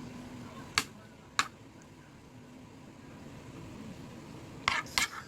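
A few short sharp clicks or taps, two about a second in and a close pair near the end, over a low steady hum.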